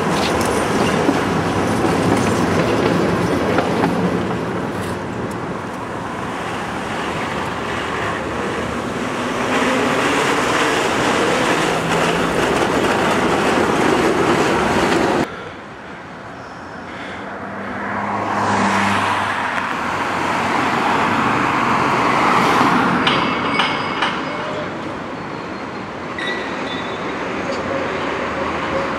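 Electric street trams, including an MTV-82 museum tram, running on street track through an intersection among passing car traffic. The sound drops abruptly about halfway, then swells again as a tram comes closer.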